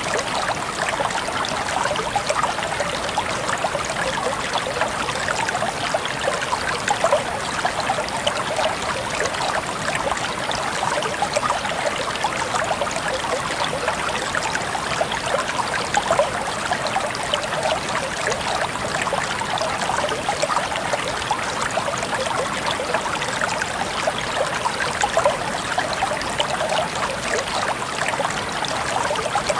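Running water flowing steadily, a continuous splashing trickle with no pauses.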